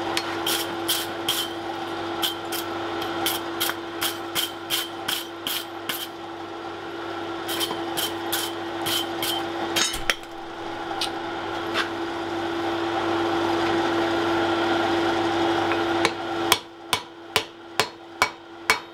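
Hand hammer striking red-hot wrought iron on an anvil, each blow with a short ring: about three blows a second, then a break about halfway through, then a quicker run of blows near the end as the bar is bent over the anvil's edge. A steady hum runs underneath.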